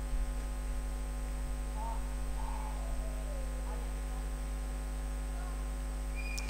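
Steady electrical mains hum, with a thin high whine above it.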